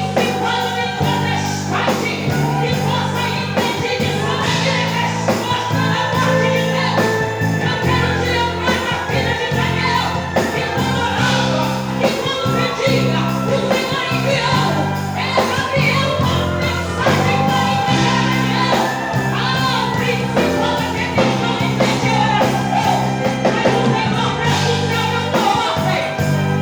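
Gospel hymn sung by a group of voices over band accompaniment, with a steady bass line and a regular beat.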